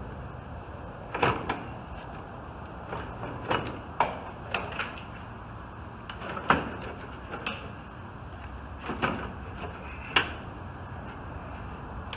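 Irregular metallic clunks and knocks, about a dozen scattered through, as a car's bumper reinforcement bar is handled and worked into place against the front end, over a steady low hum.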